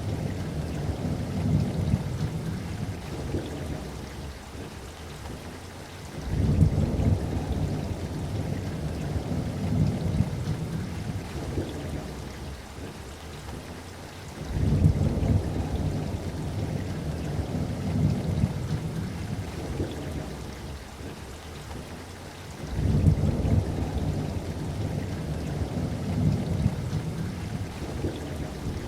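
Steady rainfall with rolling thunder. Three low rumbles swell up suddenly, about a quarter, half and three-quarters of the way through, and each dies away over several seconds.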